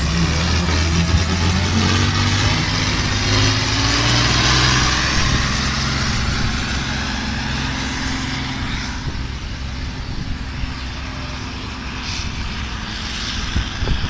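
Fendt 614 tractor's diesel engine, tuned to 300 hp, running hard under heavy load, with a high whistle rising in pitch over the first few seconds. The engine sound eases off somewhat in the second half.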